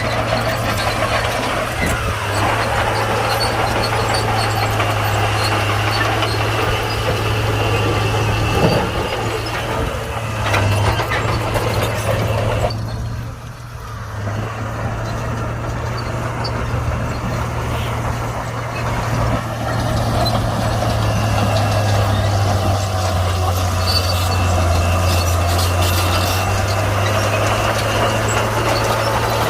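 Komatsu D41P crawler bulldozer's diesel engine running steadily while working. It dips briefly about halfway through, then picks back up.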